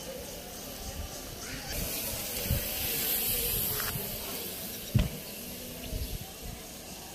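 Wind hissing on a phone microphone outdoors, brighter for a couple of seconds, with a few dull low bumps, the sharpest about five seconds in.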